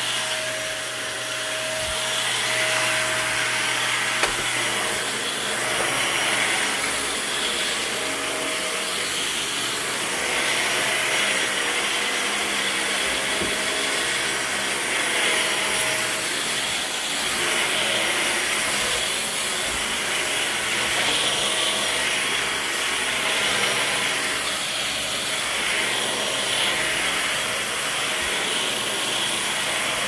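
Dyson Ball upright vacuum cleaner running on carpet: a steady airy noise with a faint steady tone under it, swelling and easing every couple of seconds as it is pushed back and forth.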